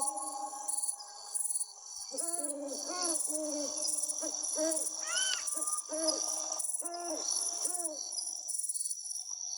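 Forest birdsong: a bird gives a run of short, low, arched call notes, a few a second, from about two seconds in until near the end, with a few higher whistled notes among them. A steady, high, pulsing trill runs underneath.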